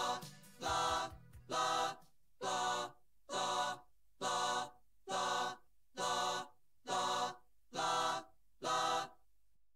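Unaccompanied group of voices singing one short chord over and over, ten times at about one a second, with gaps between. A few low thuds sound under the first chord or two.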